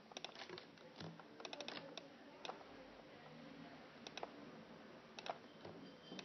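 Faint, irregular clicking of a computer mouse and keyboard, heard as single clicks and quick clusters of several.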